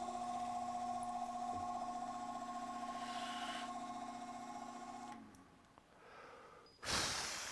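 Drill press motor running with a steady whine while boring small 2 mm holes, with a brief cutting hiss about three seconds in. The motor shuts off about five seconds in and spins down. Near the end comes a short, loud rushing noise.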